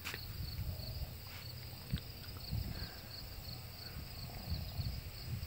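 Insects chirping in a steady, rapid rhythm, about three chirps a second, over a low rumble on the microphone, with a soft tap about two seconds in.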